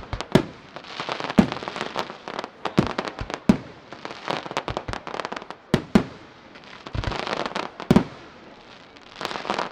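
Aerial firework shells bursting in the sky: sharp bangs about once a second, some in close pairs, over stretches of dense crackling.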